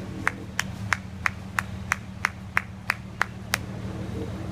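A sharp, regular clicking about three times a second over a steady low hum; the clicking stops about three and a half seconds in.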